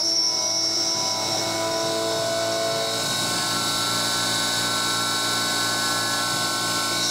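CNC mill spindle, driven by an old brushless DC motor, running while an end mill cuts 6061 aluminium under a coolant mist spray. It makes a steady whine of several tones over a hiss, and some of the tones drop out partway through.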